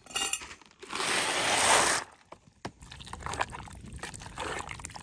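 A metal camp cooking pot clinking, then liquid pouring for about a second, followed by a utensil stirring and scraping in the pot.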